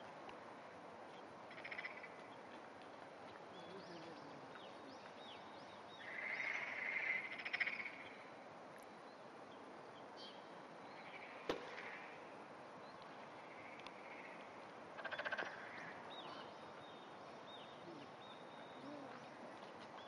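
Quiet outdoor pond ambience with several short rattling animal calls, the loudest about six to eight seconds in, and a single sharp click near the middle.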